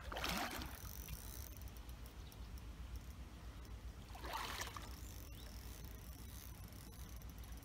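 Water splashing in two short bursts, one at the start and one about four seconds later, over a steady low rumble.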